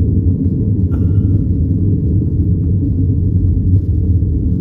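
Steady low rumble of a vehicle driving on a dirt road, heard from inside the cabin.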